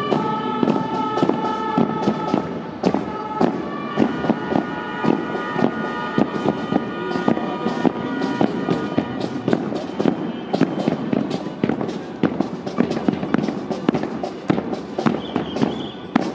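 Music played on the move: rapid, irregular drum strikes several times a second under a wind instrument sounding long, steady held notes that change pitch every few seconds.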